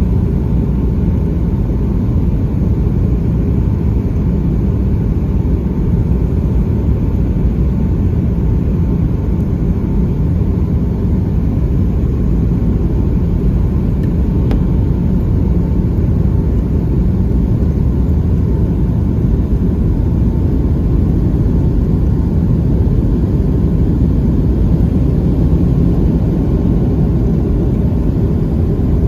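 Steady low rumble of engine and airflow noise inside the cabin of a Boeing 757-200 during landing, heard from a window seat, with a faint steady tone and a single faint click about halfway through.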